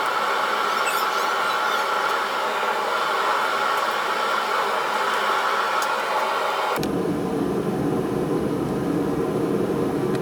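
Steady mechanical whirring noise. About seven seconds in it switches abruptly to a deeper, lower rumble.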